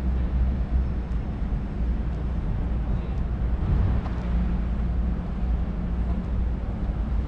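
Steady low drone of the docked Cunard cruise ship Queen Elizabeth's onboard machinery: a deep, even hum with a fainter steady tone above it.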